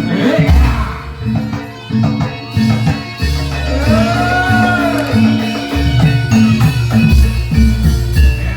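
Loud barongan accompaniment music with drums and percussion over a repeating deep bass pattern, and a tone that glides up and back down about four seconds in.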